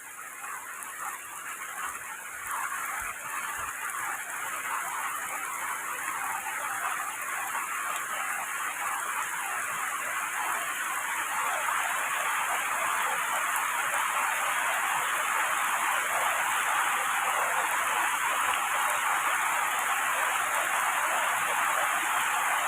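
Heavy rain pouring onto tree foliage, a dense even hiss that swells gradually louder over the first ten seconds or so and then holds steady.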